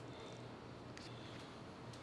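Quiet room tone: a low steady hum with a few faint clicks.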